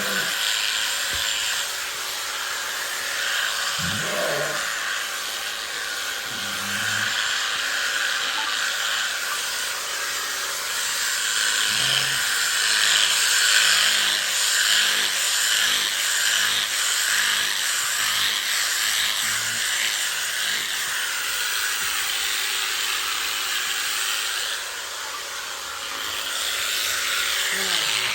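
Electric sheep-shearing clippers running steadily while cutting through a sheep's fleece.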